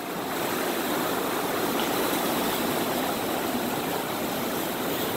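Steady wash of ocean surf around shoreline rocks.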